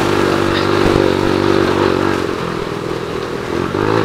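Small 50cc scooter engine running at high revs under way, heard from the rider's seat with wind and road noise. The revs ease off a little past halfway and climb again near the end.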